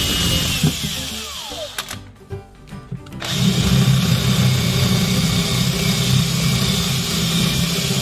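Makita cordless drill with a two-stage counterbore bit boring into a 15 mm cedar board. The drill winds down with a falling whine about half a second in, stops for about two seconds, then runs steadily again as the bit cuts into the wood.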